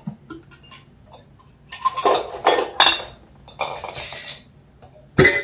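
Glass Ball canning jars clinking and knocking against each other as they are handled in and out of their box: a series of clinks with short ringing, the loudest one near the end, and a brief rustle in between.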